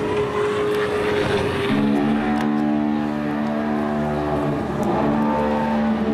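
Low sustained drone tones from the dance piece's sound score, held notes over a rough noisy bed, changing pitch about two seconds in and again near the end.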